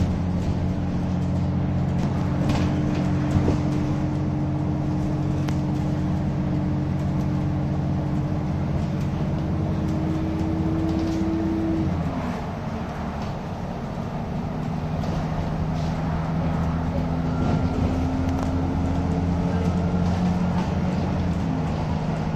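Bus engine and road noise heard from inside the cabin, with scattered rattles. The engine note climbs steadily, falls away about halfway through, then climbs again and drops once more near the end.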